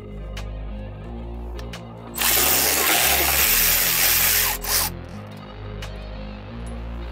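Cordless electric power ratchet running for about three seconds in the middle, spinning out an external Torx bolt on a transmission pan, over background music.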